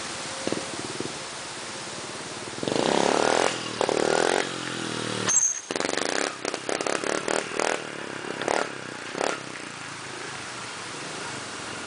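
Honda CRF70 dirt bike's small single-cylinder four-stroke engine revved hard for a couple of seconds, dropping off briefly about five and a half seconds in, then blipped in short throttle surges as it rides past before settling to a steadier, quieter running.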